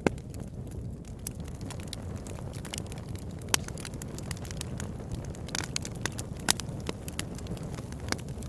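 Campfire crackling: irregular sharp pops and snaps over a steady low rumble, with the loudest pops near the start, about three and a half seconds in and about six and a half seconds in.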